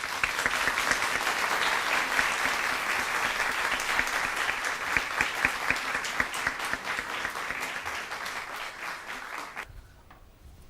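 Audience applauding: dense clapping that thins out and stops shortly before the end.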